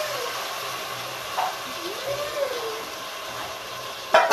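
Chicken pieces sizzling in hot oil with fried onion and lima beans in an aluminium pressure cooker, a steady hiss. A few soft rising-and-falling tones sound over it, and a sharp knock comes near the end.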